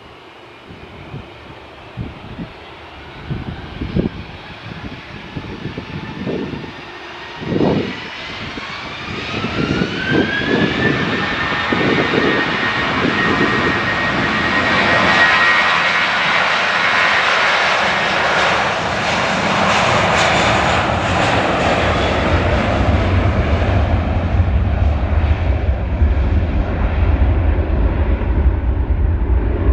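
Jet airliner's engines spooling up: a whine rises in pitch and then holds steady as the engines reach high thrust. This becomes a loud, steady rush of jet noise, with a deep low rumble joining in during the second half.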